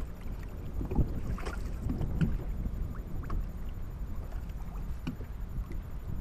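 Fishing kayak out on a lake: a steady low rumble of wind and water noise, with scattered light knocks and clicks.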